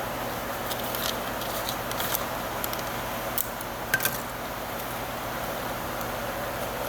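Steady shop background noise with a low hum, broken in the first half by a scatter of sharp clicks and crackles from hands working the cable-wrapping materials on a heavy power lead.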